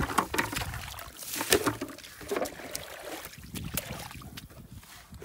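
Irregular splashing and sloshing in shallow muddy water running over grass, with a few sharper splashes spread through.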